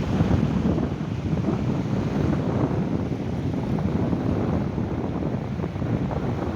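Sea waves washing onto a beach, with wind buffeting the microphone as a steady low rumble.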